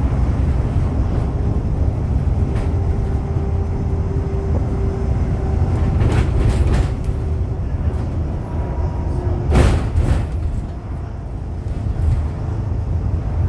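Scania OmniDekka double-decker bus heard from inside the lower deck while under way: a steady low engine and road rumble with a thin steady whine. Sharp knocks come a few times around the middle, and the loudest knock comes just before the ten-second mark.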